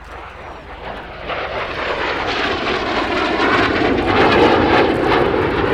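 Folland Gnat T.1 jet trainer flying past with its Bristol Siddeley Orpheus turbojet running, the jet noise growing louder from about a second in as the aircraft approaches.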